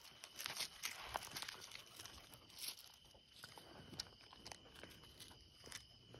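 Faint crunching and shuffling on loose gravel as feet and puppies' paws move about, in scattered small clicks.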